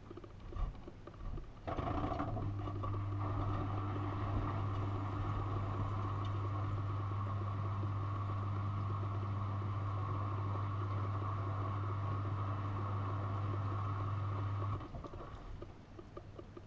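Miele washing machine's drain pump switching on a couple of seconds in, humming steadily, and cutting off near the end as it pumps out the hot wash liquor at the end of the main wash. A few light knocks come just before it starts.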